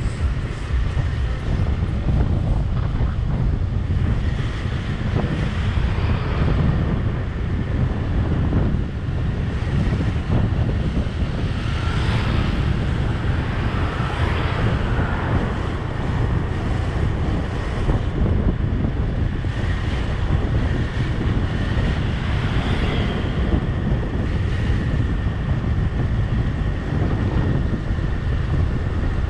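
Wind buffeting the microphone of a moving vehicle, a steady low rumble, with engine and road noise underneath.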